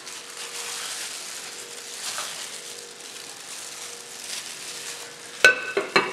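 Wet squishing of a gloved hand kneading chicken pieces in thick green marinade paste in a glass bowl. Near the end come a few sharp, ringing glass clinks as the bowl is handled and covered.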